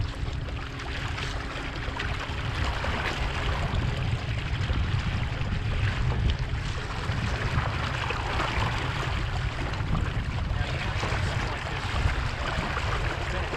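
Water rushing and washing steadily along a sailboat's hull while under way, over a steady low rumble.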